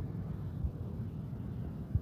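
Low, steady rumble of an approaching passenger train, with wind thumping twice on the microphone.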